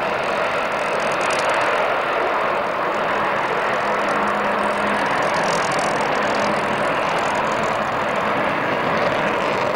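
Jet noise from an Avro Vulcan bomber's four Olympus turbojets as it banks and flies away during a display: a loud, steady rushing sound with no breaks.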